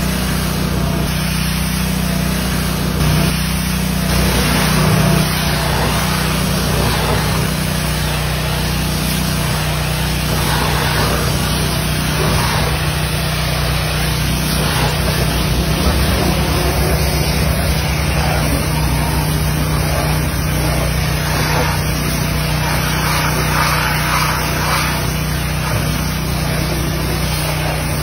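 Pressure washer running steadily, its water jet hissing against the truck's front, the spray sound swelling and easing as it moves over the surfaces.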